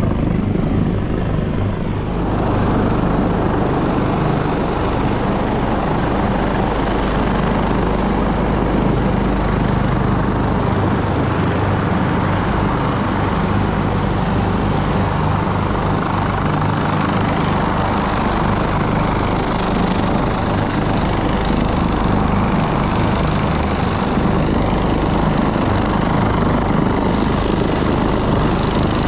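Rescue helicopter's rotor and turbine running steadily, a continuous loud drone with a low, even beat.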